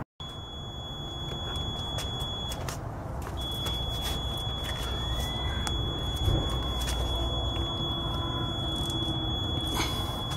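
A steady high-pitched tone, broken for about a second near the three-second mark, over outdoor background noise, with scattered clicks and a thump about six seconds in as a car tire is handled.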